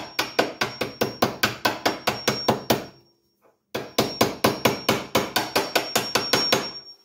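Hammer tapping on a socket to drive a milling machine's quill return clock spring into its housing. The taps come quickly, about five a second, in two runs of about three seconds with a short pause between, under a faint high metallic ring.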